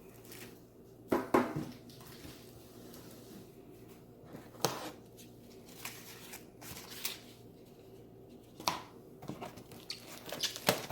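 Cardboard and plastic packaging being handled while unpacking a turntable: a few separate sharp knocks and scrapes, about a second in, near five seconds and near nine seconds, with quicker rustling and crinkling near the end.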